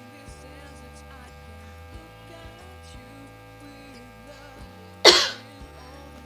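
One loud, sharp sneeze about five seconds in, set off by tickling the nose with a blade of long grass, over a steady electrical hum.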